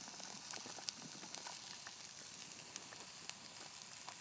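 Onions and mushrooms sizzling in a frying pan: a soft, even hiss with fine irregular crackles.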